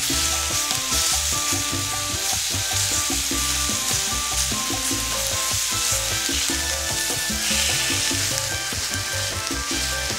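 Seasoned beef slices frying in a cast-iron skillet with a steady sizzle, stirred and turned with a utensil. Background music plays underneath.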